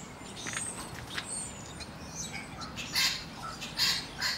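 Birds calling: faint high chirps, then a series of louder calls starting about three seconds in.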